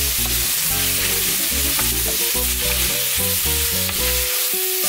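Beef, pork and freshly added chicken sizzling as they fry in a refrito in a wide paila, stirred with a wooden spoon. Low background music plays under it.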